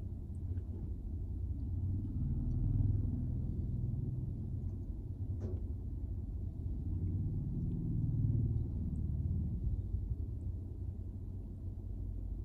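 Low rumble of motorbike traffic passing on the street, swelling twice as bikes go by.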